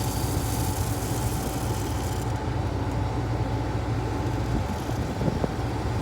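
Combine harvester running steadily, a constant low hum with a steady whine above it; the higher hiss fades about two seconds in.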